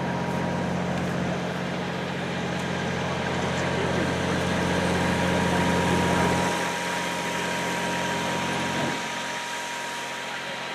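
A diesel engine idling with a steady low hum. It grows a little louder toward the middle, then fades in two steps in the second half.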